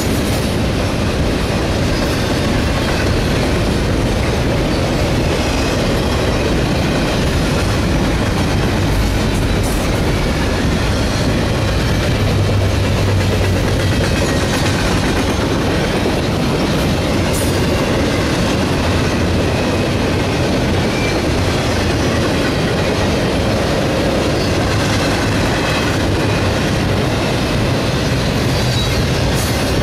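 Steel wheels of a CSX double-stack container train's well cars rolling past at speed: a steady, loud rumble and clatter on the rails with a few sharp clicks along the way.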